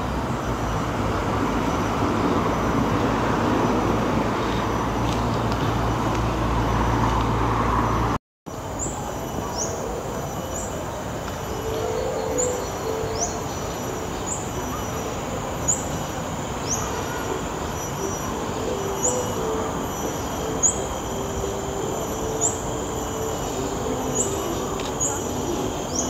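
Outdoor park ambience. For about eight seconds a steady rumble of passing vehicles swells, then cuts off abruptly. After that, a quieter background carries birds calling, one with a short rising chirp repeated about every second and a half.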